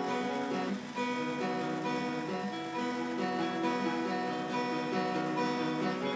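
Acoustic guitar strumming chords: the instrumental opening of a song, with no singing yet.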